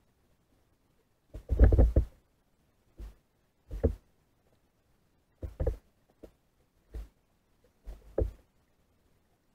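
A string of short, dull knocks at irregular intervals, picked up through a pole-mounted underwater camera housing. The loudest is a quick cluster about one and a half seconds in.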